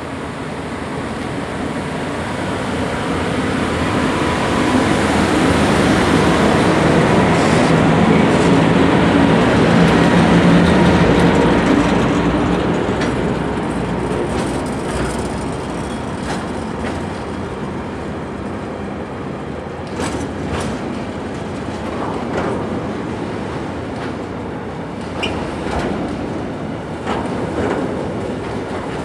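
Freight train passing, the locomotive and wagons swelling to their loudest about ten seconds in, then a long run of wagons rolling by with scattered clicks from the wheels.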